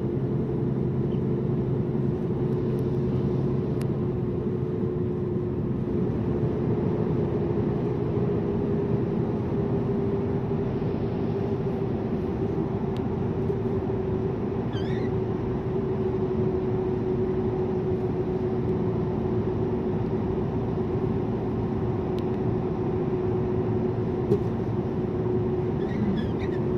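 Steady engine and road noise inside a moving truck's cab, with a constant hum.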